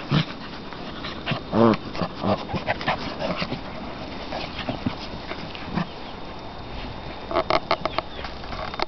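Six-week-old kuvasz puppies play-wrestling, with one short puppy yelp about a second and a half in. Scattered small clicks and scuffles run through it, with a quick run of them near the end.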